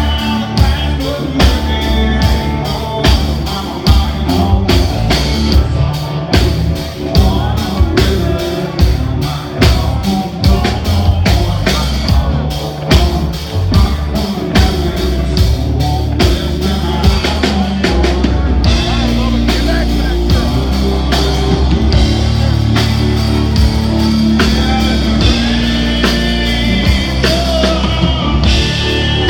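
A Southern rock band playing live on stage: electric guitars, electric bass and drum kit, with a man singing lead. The drum hits are sharp and regular for the first half, then the sound settles into a steadier, fuller wash.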